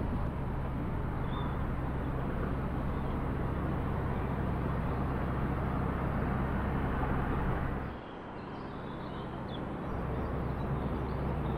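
Steady outdoor background rumble and hiss, which drops for a moment about eight seconds in and then returns.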